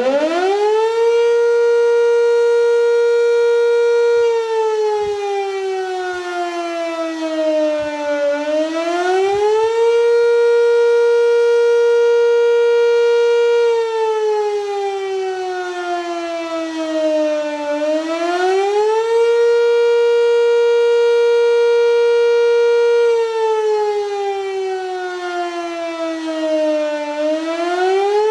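Sentry 3V8 outdoor warning siren sounding the attack signal. It winds up at the start, then three times holds a steady high tone for about four seconds, falls slowly in pitch over about four seconds, and rises quickly back.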